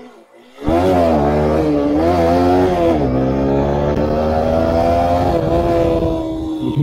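TVS Apache RTR 160 4V's single-cylinder engine accelerating hard. It comes in loud suddenly about a second in, its pitch dips about three seconds in and then holds fairly steady.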